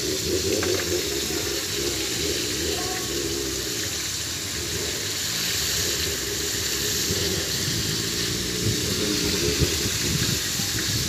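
Steady sizzling of food frying in hot oil over an open fire.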